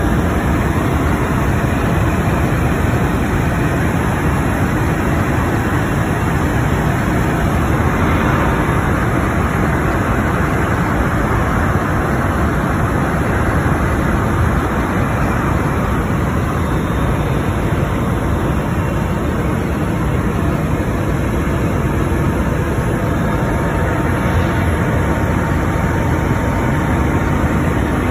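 Helicopter engine and rotor noise heard from inside the cabin: a loud, steady rushing drone with a faint thin whine above it.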